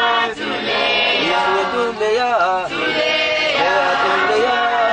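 A choir singing a hymn in an African language, several voices together.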